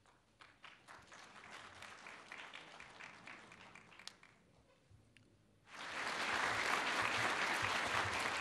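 Audience applauding: a scattered round of clapping for about four seconds, then, after a short lull, a much louder and fuller round that starts abruptly about six seconds in.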